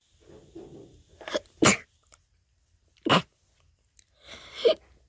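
A person with a cold sneezing in a rapid fit of half-stifled sneezes: gasping inhales, then four short, sharp sneezes over about three and a half seconds.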